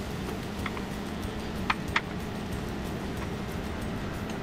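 A metal spoon knocking against a bowl and non-stick pan as cooked rice is spooned into a pan of sautéed spinach: three sharp clicks in the first two seconds over a steady low hum.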